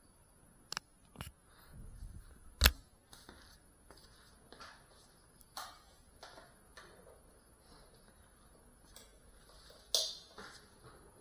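Quiet room with scattered sharp clicks and knocks from handling; the loudest knock comes about two and a half seconds in and another sharp click near ten seconds. Faint rustles fall between them, and no drone motors are running.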